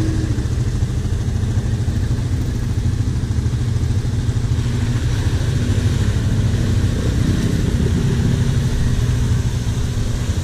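ATV engines running at low revs, a steady low rumble that does not stop, as quads work slowly through a mud hole.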